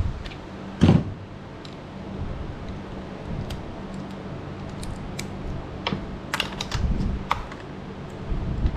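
Light clicks and small metallic clatter from hand work on a chainsaw's bar and chain, with a louder knock about a second in and a quick run of clicks later on, over a steady low hum.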